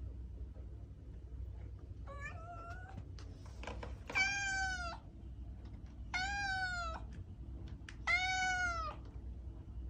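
Domestic cat meowing four times, about two seconds apart. Each meow is drawn out and arches up then down in pitch, and the first is fainter than the rest. A low steady background rumble runs underneath.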